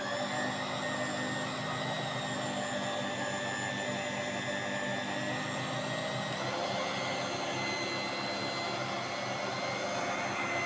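Electric kitchen mixer motor running steadily while mixing a flour, egg and water batter, with a constant whine that shifts slightly in pitch about six seconds in.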